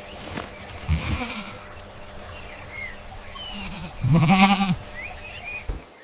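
One loud, wavering bleat from a goat-like farm animal about four seconds in, with faint high bird chirps before and after it.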